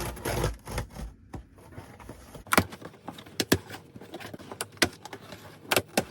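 Scissors cutting open a cardboard box: handling rustle at first, then a series of sharp snips of the blades, several in quick pairs.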